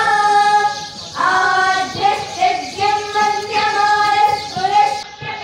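A group of young girls singing a Hindu devotional hymn together into microphones, in long held notes with a brief pause about a second in.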